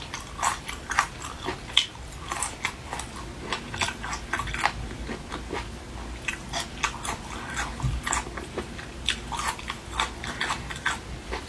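Close-miked eating of seafood: chewing and biting with many short, crisp crunches and wet clicks, several a second.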